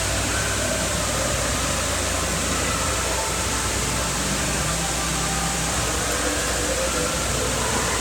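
Steady din of an indoor wave pool: water washing over the shallow pool floor, with a constant low hum and faint distant voices in the echoing hall.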